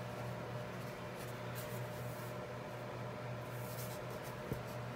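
Alcohol marker tip rubbing on paper as a page is colored in, over a steady low hum, with a single small click about four and a half seconds in.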